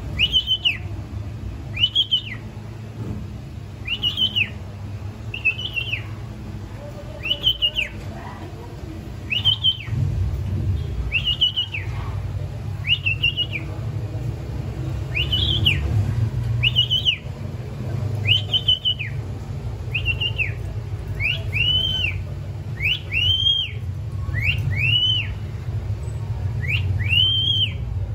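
Cockatiel whistling one short note that rises and falls, repeated over and over about every second and a half; in the last few seconds the notes come in quick pairs. A low steady hum runs underneath.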